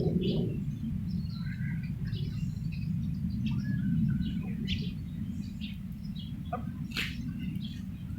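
Wild birds chirping, many short calls scattered throughout, over a steady low rumble.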